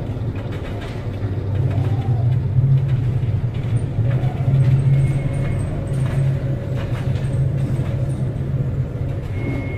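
Steady low hum of a tanker's engine and machinery heard from the bridge, under a rushing wash of wind and heavy sea that swells and eases a few times.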